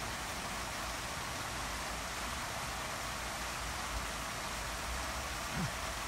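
Steady, even hiss of background noise, unchanging throughout, with no distinct knocks or voices.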